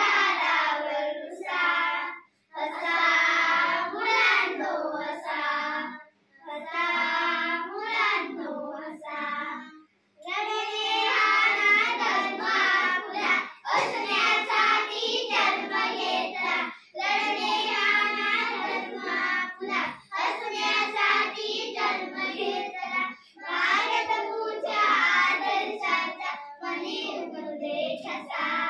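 A group of young children singing a Marathi poem together as an action song, in short phrases with brief pauses between them every few seconds.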